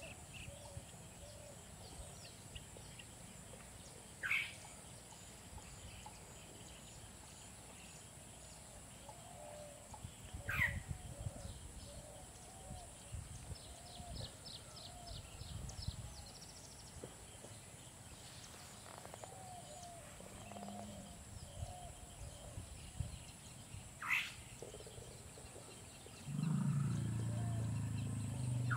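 Asian elephant giving a loud, low rumble near the end, over a steady high insect drone. Three short, sharp downward-sliding bird calls come earlier.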